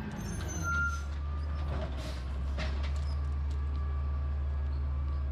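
Garbage truck engine running steadily with a low drone, with a brief high squeal about a second in and two short hisses about two seconds in.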